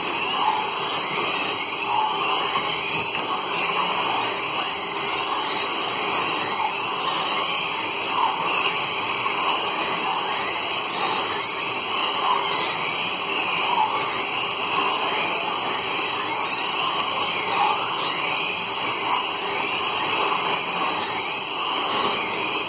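Several 1/24-scale slot cars racing round a multi-lane track, their small electric motors whining steadily, the pitch rising and falling again and again as they run through each lap.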